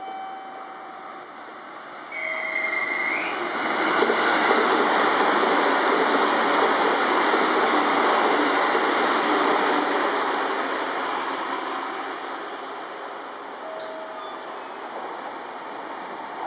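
JR electric commuter train passing close on the Tōkaidō Main Line tracks. The rumble of wheels on rails builds about two seconds in, is loud from about four to ten seconds, then fades slowly as the train moves away. A brief high whistle-like tone sounds about two seconds in.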